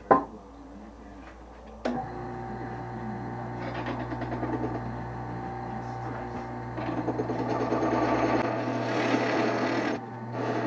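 Wood lathe's electric motor switching on about two seconds in and running with a steady hum, then a turning tool cutting into the spinning Osage orange wood, the cutting noise growing louder from about seven seconds in and breaking off briefly near ten seconds.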